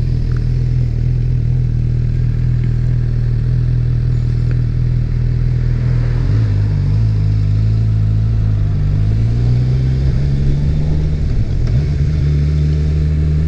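Honda CB1000R's inline-four engine running at low revs on the move in slow town traffic. The pitch drops about six seconds in, then rises slowly again toward the end as the bike picks up speed.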